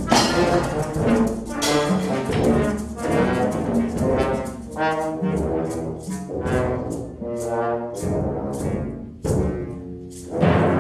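Concert wind band playing brass-heavy chords with percussion. In the second half the chords come as a steady run of accented strokes, about three a second, and a loud full-band hit falls near the end.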